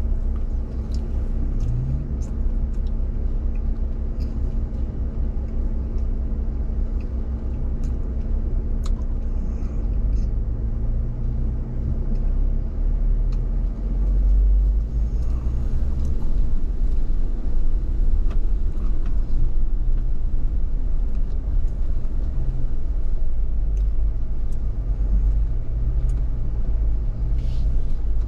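4x4 vehicle's engine running at low speed, a steady low rumble that grows louder about ten seconds in, with a few light clicks and knocks.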